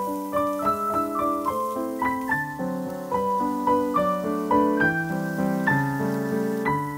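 Background piano music: a steady flow of gentle piano notes.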